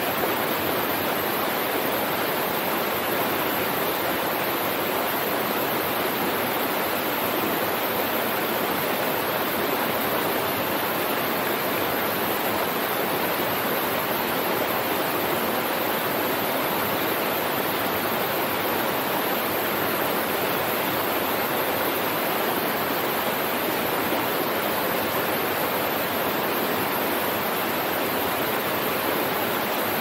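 Small waterfall cascading over boulders into a shallow pool, a steady, unbroken rush of falling and splashing water.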